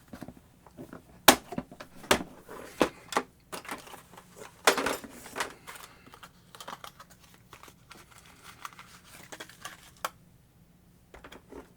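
Irregular sharp clicks and short rustles of small hard parts being handled: a rotary tool's collet and collet nut fitted by hand. No motor is running.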